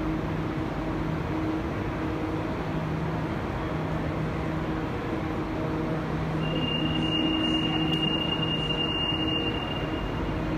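Alstom NS-16 metro train standing at the platform with its doors open, a steady low hum. About six seconds in, a steady high warning tone sounds for about three seconds: the door-closing warning just before the doors shut.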